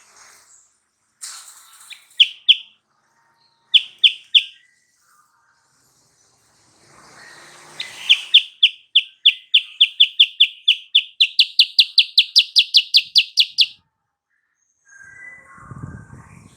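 Silver-eared mesia singing: a few short clear notes, then a long run of rapid repeated notes, about four a second, that steps up in pitch partway through.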